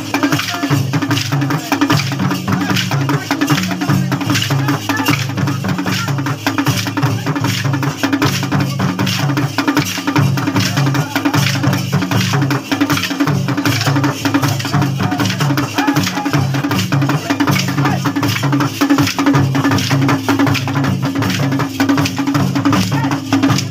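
Folk drumming with rapid, dense clacking of wooden sticks struck together by dancers in a Saila stick dance, running steadily throughout.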